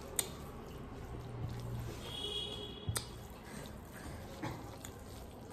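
Quiet close-miked eating sounds: fingers mixing and squishing rice on a plate, and soft chewing. There are two sharp clicks, one just after the start and one about three seconds in, and a brief high tone a little over two seconds in.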